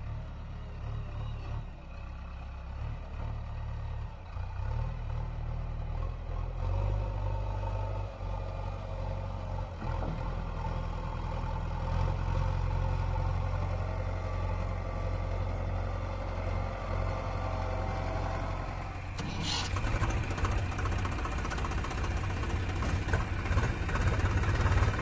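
Diesel engine of a JCB 3DX backhoe loader running as the machine moves across the dirt. About three-quarters of the way through it gives way to the louder, closer running of a Swaraj 735 FE tractor's three-cylinder diesel engine.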